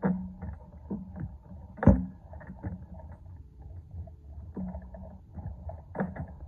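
A red wrist-and-finger training handle on a pulley cable being worked through repetitions: irregular clicks and knocks, with one sharp, louder knock about two seconds in.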